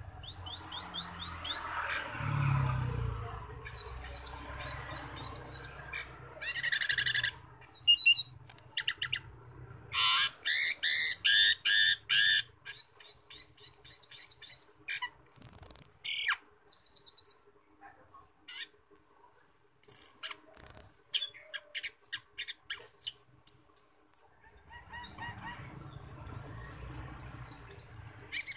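Cucak keling (Asian glossy starling) singing a varied run of chirps, rapid trills and high whistles, phrase after phrase with short pauses between.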